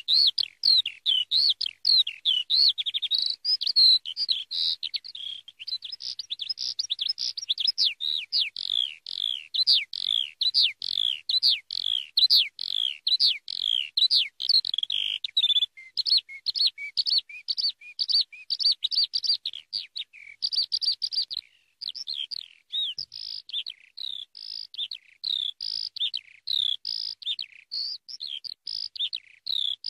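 Eurasian skylark singing its long, unbroken song: a fast, continuous stream of high chirps, trills and warbles, with only a brief break about two-thirds of the way through.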